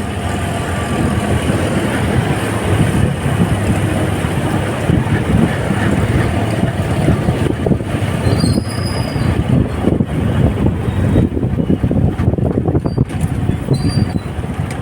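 Honda motorcycle running on the move, its engine sound mixed with heavy, gusting wind noise over the microphone. Two brief faint high chirps are heard, about midway and near the end.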